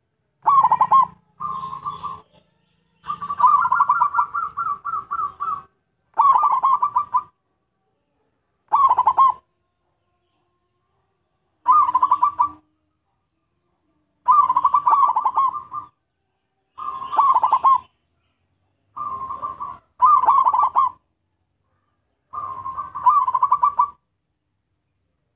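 Zebra dove (perkutut) cooing: about ten phrases of rapid, pulsed coos, each around a second long and one near the start lasting over two seconds, with pauses of one to two seconds between them.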